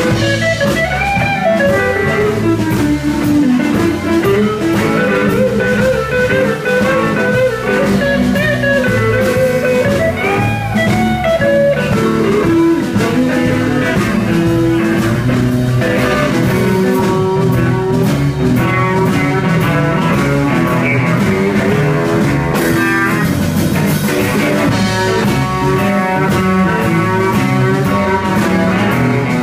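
Live blues-rock band playing an instrumental passage: an electric guitar lead with bent notes over rhythm guitar, bass guitar and drum kit.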